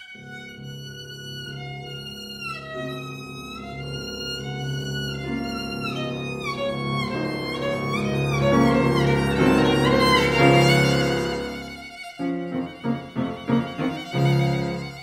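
Violin with piano accompaniment: the violin holds a long singing line that steps slowly downward while the piano builds beneath it to a loud climax, then about twelve seconds in the music breaks into a string of short, detached accented notes.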